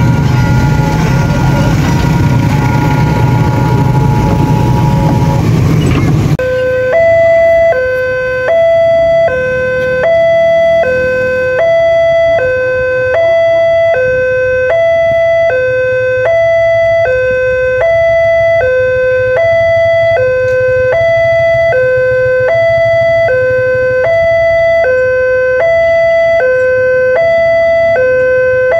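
A train running loudly past a level crossing, cut off abruptly about six seconds in. It is followed by the crossing's electronic warning alarm, which sounds two alternating tones, low then high, repeating steadily about once every 1.3 seconds.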